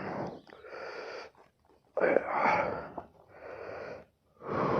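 A man breathing hard after exertion: about three heavy, rasping in-and-out breaths, the out-breaths louder.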